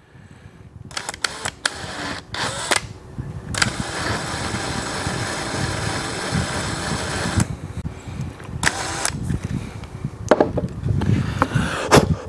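DeWalt cordless drill with a twist bit countersinking a screw hole in a drawer front: a few short pulls of the trigger, then the motor runs steadily for about four seconds. Clicks and knocks follow as the drill is set down and the board handled.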